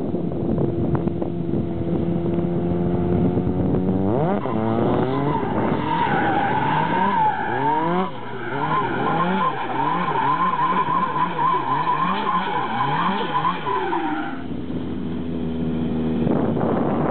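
Nissan Silvia drift car, tuned to 500 PS, running steadily and then revving hard. Through the drift its engine note climbs and drops again and again while the tyres squeal. Near the end the squeal stops and the engine settles back to a steady note.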